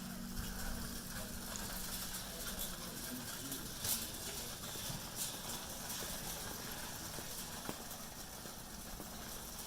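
Footsteps with scattered clicks and knocks, the loudest a few seconds in, over a steady low hum that fades out in the first couple of seconds.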